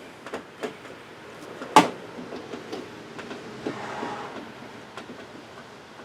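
Scattered light clicks and knocks of hand tools working at a loose bolt inside a vehicle door, with one sharp, louder click about two seconds in and a brief scrape near the middle.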